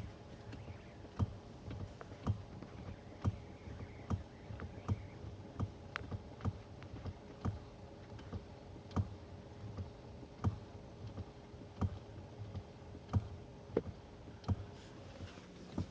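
Volkswagen Polo's steering knocking: sharp knocks at uneven intervals, about one or two a second, over a steady low hum. The knock is the sign of a steering fault.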